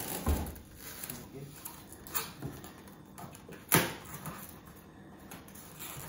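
Handling noise on a refrigerator: protective plastic film rustling as it is peeled off the doors, with a few sharp knocks against the cabinet, the loudest a little before four seconds in. A faint low steady hum runs underneath from the just-plugged-in fridge.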